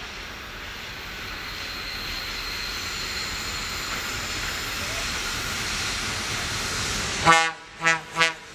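FEPASA freight train approaching with a steadily growing rumble and rail hiss, then the locomotive sounding its horn near the end: one loud blast followed quickly by two short ones.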